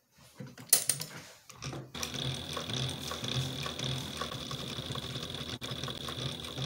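A few clicks at first, one of them sharp, then about two seconds in an industrial sewing machine starts running steadily, stitching through leather, with a constant high whine over a low, even pulse.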